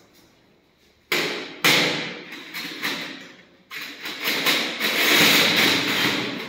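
Stainless steel surgical instruments (forceps and scissors) clattering and clinking together as they are picked up and sorted in bunches on a steel instrument trolley. It starts suddenly about a second in, dips briefly near the middle, then goes on loudly.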